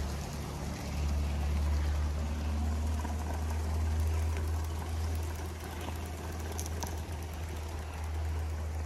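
Gauge 1 model train running along the garden track: a steady low rumble with an even hiss over it.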